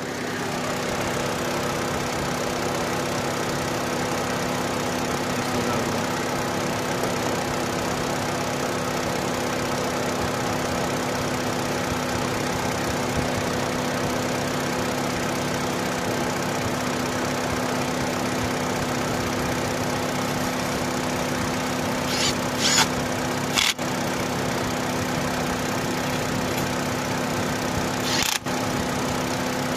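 Opel Astra petrol engine idling steadily and evenly, running smoothly after a hard start. A few short clicks come near the end.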